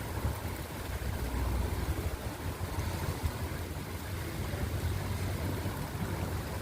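Thunderstorm ambience: a steady low rumble under an even hiss, with no distinct thunderclap.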